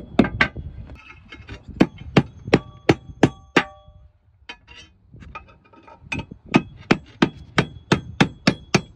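A roofer's hammer tapping on clay roof tile in runs of sharp strikes: a slower run, a short pause about four seconds in, then a quicker run of about four or five taps a second. A few strikes ring briefly.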